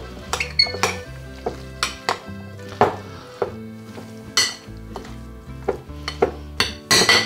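Fork stirring a chicken, black bean and corn mix in a glass bowl, clinking and scraping against the glass in irregular strokes, with a denser, louder run of clinks near the end.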